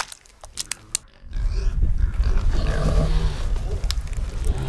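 A sharp click at the start, a second or so of quiet with a few faint clicks, then low growling and grunting, like someone snarling over food.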